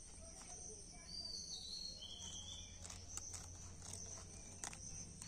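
Faint outdoor ambience: insects chirping steadily at a high pitch, a bird whistling two short calls in the first half, and a few light clicks from small scissors snipping dried bay leaves.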